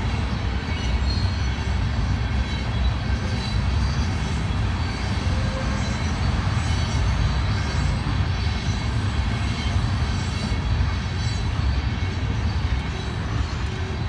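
Union Pacific oil tank train rolling past, a steady low rumble of wheels on rail.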